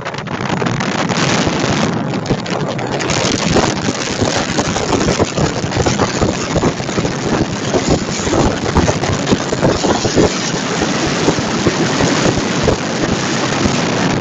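Steady loud rushing of wind and engine aboard a moving CityCat catamaran ferry, the wind buffeting the microphone.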